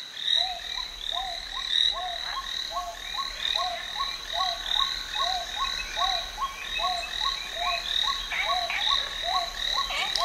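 Frog chorus: short croaking calls repeating about two a second in a steady rhythm, with higher chirping calls above them.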